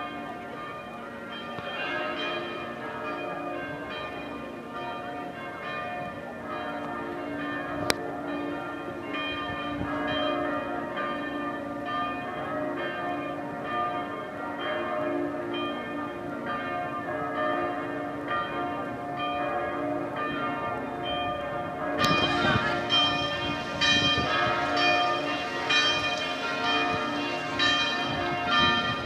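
Church bells of the Amalfi cathedral tower ringing a full festive peal, several bells sounding together in repeated overlapping strikes. About 22 seconds in the peal grows louder and brighter. A single sharp click sounds about 8 seconds in.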